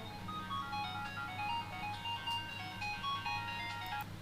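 A simple electronic tune of short single notes at changing pitches. It stops abruptly about four seconds in.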